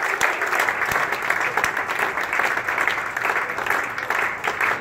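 Audience applauding: dense, steady clapping from a standing crowd.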